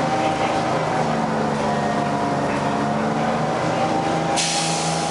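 Detroit Diesel 6V71N two-stroke diesel engine of a 1980 GM New Look bus running under way, heard from inside the cabin, its pitch rising slightly about three seconds in. A steady hiss comes in suddenly about four seconds in.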